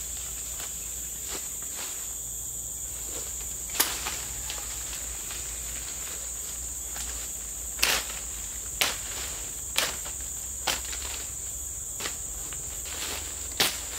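A steady, high-pitched chorus of forest insects, with several sharp cracks and rustles of leafy branches being snapped off and thrown down onto dry leaf litter.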